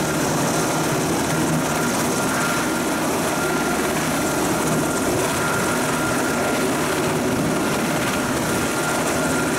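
Coast Guard rescue helicopter running on the pad: a steady, unbroken engine and rotor noise with a thin steady whine above it.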